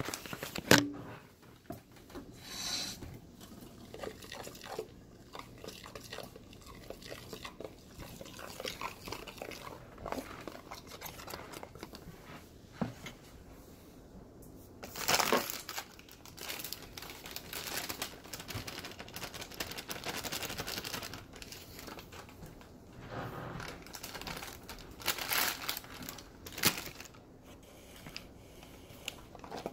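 Kitchen handling noises: intermittent crinkling and rustling with scattered knocks, and one sharp knock about a second in.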